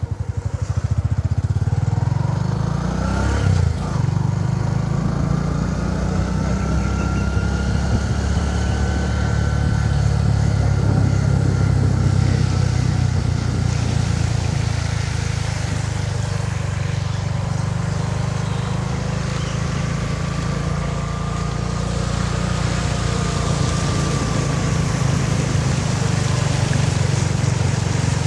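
Bajaj V15 motorcycle's single-cylinder engine running under way, its revs rising briefly about three seconds in as it pulls off. From about twelve seconds in, a steady hiss of water spray joins it as the wheels cut through floodwater.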